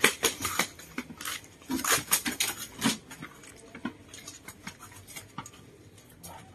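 A Muscovy duck flapping its wings in quick rustling beats as it struggles in hand through the first three seconds, then scattered softer rustles and knocks.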